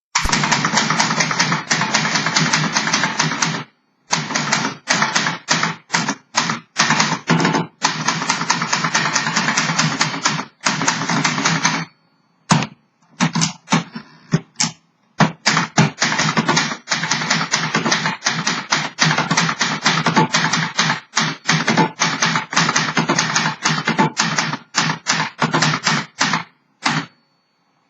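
Rapid typing on a 1968 Remington 333 portable manual typewriter: a dense run of keystrokes striking the platen. The keys strike in long bursts, broken by a brief pause about four seconds in and a longer pause with only scattered strokes about twelve seconds in. It has been refurbished and is in working order.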